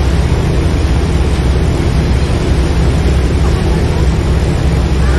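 Boat engine running with a steady, loud low rumble, mixed with wind on the microphone and the rush of the churned wake. A gull cries faintly near the end.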